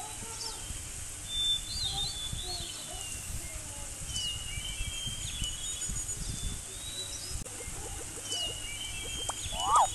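Birds chirping in short whistled calls over a low, uneven rumble of thumps. A brief louder pitched call comes near the end.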